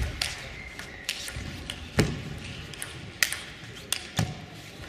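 Table tennis ball knocking back and forth between bats and table in a rally: about six sharp clicks and knocks, roughly a second apart or closer, some with a duller thud.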